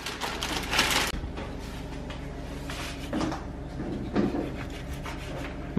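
Plastic wrapping crinkling as a chouriço is unwrapped, loudest about a second in, then a knife slicing the sausage on a wooden cutting board, with faint knocks of the blade on the board over a steady low hum.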